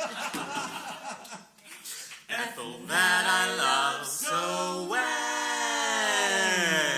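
Small a cappella vocal group singing without accompaniment, several voices in harmony. The sound is choppy for the first couple of seconds, then turns to held chords, and ends on a long chord that slides down in pitch.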